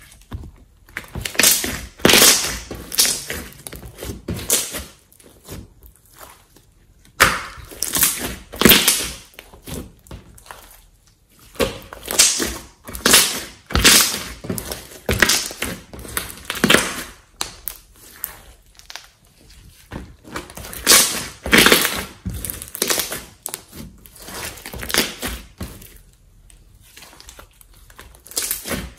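Hands squishing, pressing and folding a large mass of glossy slime: wet squelches and pops of trapped air, coming in repeated bursts about a second long with short pauses between.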